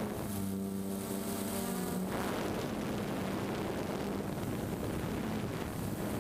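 DJI Phantom quadcopter's motors and propellers buzzing, picked up close by the camera mounted on the drone itself. A steady hum at first; about two seconds in it turns rougher and less even.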